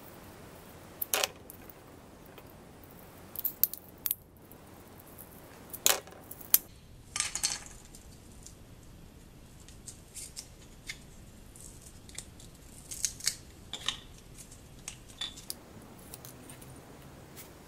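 Sharp clicks and clinks of metal and plastic as old emblems are pried and peeled off plastic wheel centre caps with a flat screwdriver, with a short scrape about seven seconds in and lighter ticks of handling later on.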